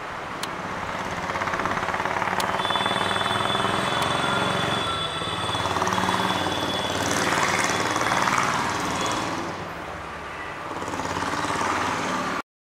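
Electric multiple unit suburban train running past, a steady rapid rattle of wheels and coaches that swells and eases as the coaches go by, with a thin high whine for a few seconds. It cuts off suddenly near the end.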